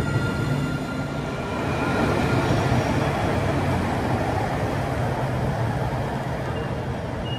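Electric tram running on street rails close by, a steady rolling noise with a low hum, easing off slightly as it moves away.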